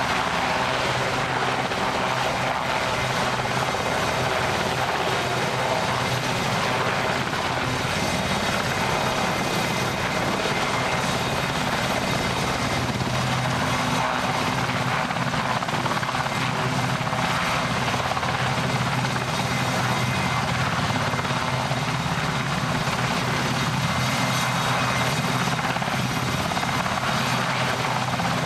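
Steady engine drone with a low hum, unchanging in pitch and loudness throughout.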